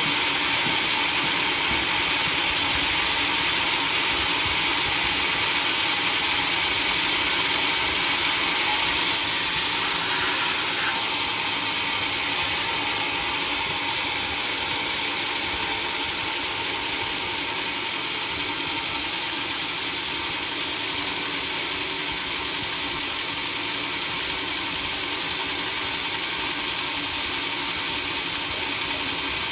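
Sawmill machinery running steadily, a loud, even, hissing mechanical noise with no clear pitch.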